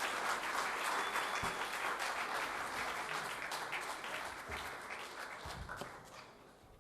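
Audience applauding, the clapping fading out gradually until the sound cuts off.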